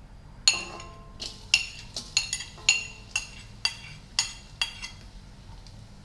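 A metal spoon clinking against a ceramic plate about ten times, sharp ringing taps, as chopped shallots are knocked off the plate into a wok.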